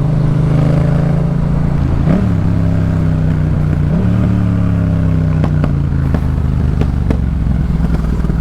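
Yamaha MT-07's parallel-twin engine running through a Jeskap K4 full exhaust under way, its revs dropping at two gear changes about two and four seconds in. Near the end a few sharp pops crackle from the exhaust as the throttle eases.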